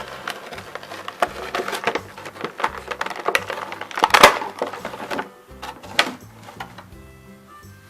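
Clicks and knocks of plastic toy figures and packaging being handled, coming thick for the first five seconds with the loudest knock about four seconds in, then a few more near six seconds, over faint background music.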